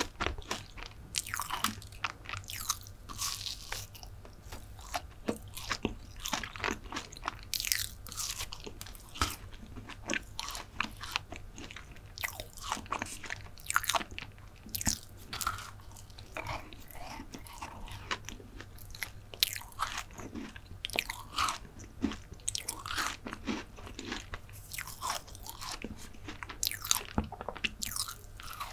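Close-miked chewing and biting of a chocolate brownie: an irregular run of short mouth clicks and soft crunches, over a faint low hum.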